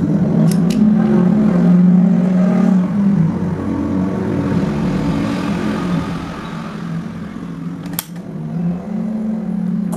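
A steady low machine hum that wavers slightly, with two sharp clicks about half a second in and a louder click about eight seconds in.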